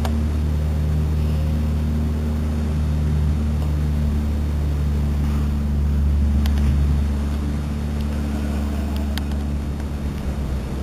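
Steady low mechanical hum with several fixed tones, with a few faint clicks about six and nine seconds in.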